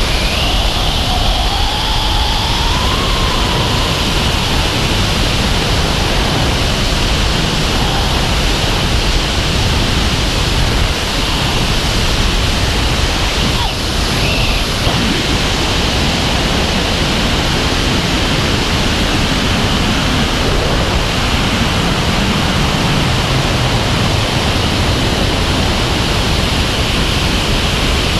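Loud, steady rush of wind over a helmet-mounted camera's microphone during wingsuit freefall, with a steady high whistle above it.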